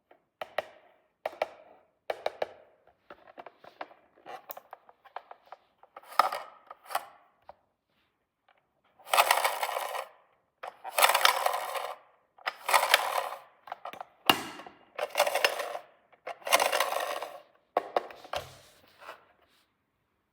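Small plastic toy pieces being handled, with scattered light clicks and taps, then a run of about six separate one-second rustling, scraping strokes.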